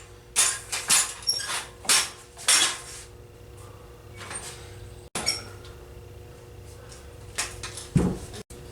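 Small hard objects clicking and clattering as they are handled: a quick run of sharp clacks in the first three seconds, then a few scattered knocks, over a faint steady hum.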